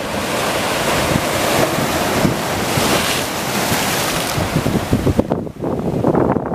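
Ocean surf breaking and washing over rocks: a long hissing rush of whitewater that falls away about five seconds in. Wind buffets the microphone underneath.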